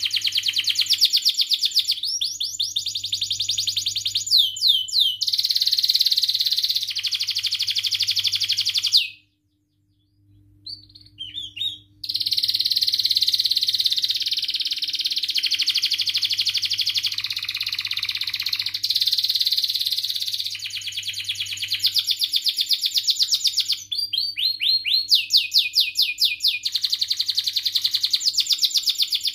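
Domestic canary singing long, rapid trilled song phrases, with quick sweeping notes between the trills. It breaks off about nine seconds in for a few seconds, giving only a couple of short notes, then sings again.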